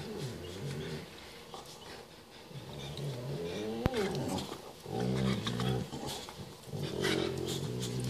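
A Great Dane and a Boxer play-fighting, growling in several low bouts, with one higher growl that rises and falls about halfway through. A single sharp click comes just before it ends.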